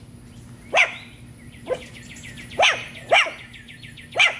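Aussiedoodle (Australian Shepherd–poodle cross) puppy, about seven and a half weeks old, barking five times with short pauses, each bark falling in pitch, the second one weaker. They are alert barks at something the owner says isn't there.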